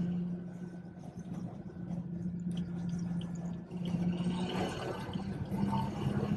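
BMW 440i's turbocharged B58 straight-six heard from inside the cabin as a steady low drone over road noise, its pitch stepping up slightly about four and a half seconds in as the revs rise.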